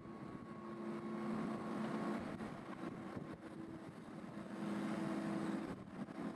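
A crane's engine running with a steady low hum that swells louder twice, each time for a second or so, as the crane swings its load.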